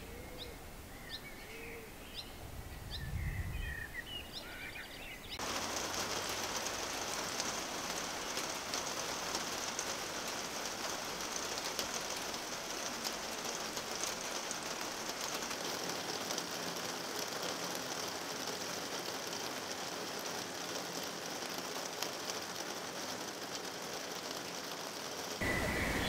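Birds chirping, with a short low rumble about three seconds in. After about five seconds, steady heavy rain begins to hiss on a garden and wooden deck and runs for about twenty seconds, until chirping birds return near the end.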